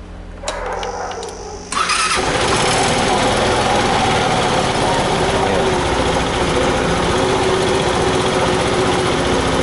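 Suzuki Burgman 125 fuel-injected scooter's single-cylinder four-stroke engine being started. It cranks for about a second, catches, and then runs at a steady idle.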